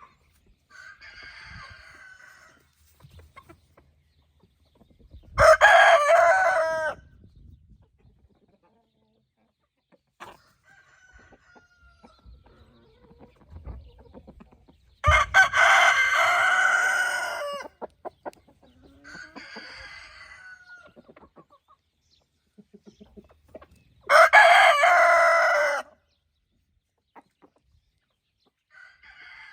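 Roosters crowing three times, each crow loud and lasting about two seconds, several seconds apart, with fainter calls from the flock between the crows.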